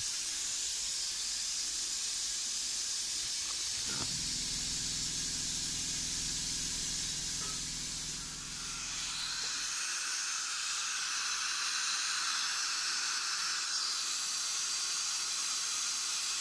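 Steady hiss of workshop equipment, with a low hum under it that stops about ten seconds in.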